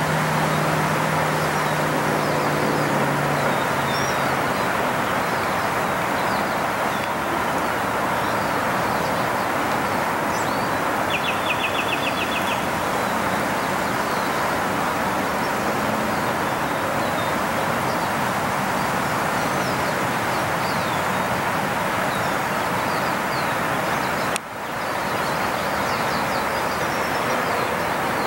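Steady rush of road traffic noise, with a low engine hum that fades out in the first few seconds. Small bird chirps are scattered over it, and a short rapid trill comes about eleven seconds in.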